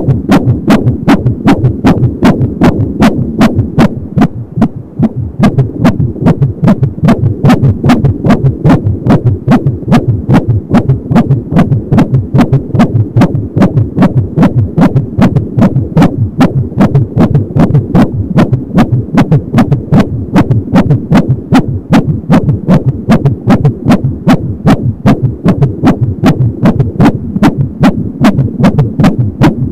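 Fetal heartbeat at 22 weeks of pregnancy through an Angelsound home fetal Doppler's speaker: a fast, regular pulsing at about 170 beats a minute. The signal weakens briefly about four seconds in, then comes back strong.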